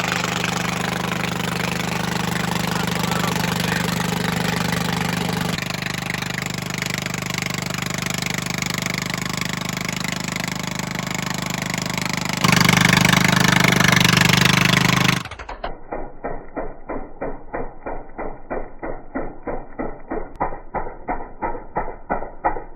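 Vermeer SC30TX stump grinder running hard, its engine and cutter wheel grinding into a stump. The sound jumps twice and is louder for a few seconds. About 15 seconds in it changes suddenly to a duller, rhythmic pulsing about four times a second.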